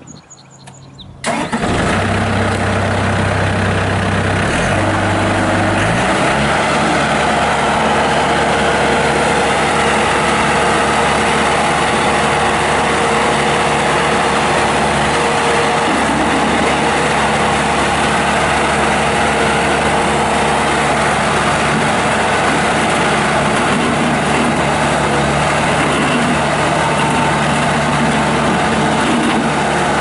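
Bobcat T300 compact track loader's Kubota turbo diesel starting about a second in, then running steadily. The engine speed rises about six seconds in and holds there while the loader arms are raised and lowered.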